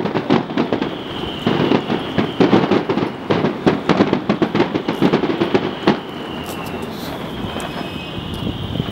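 Fireworks going off in a dense run of rapid crackling bangs, with a high whistle sliding slowly down in pitch. After about six seconds the bangs thin into a steadier hiss and rumble, then pick up again at the very end.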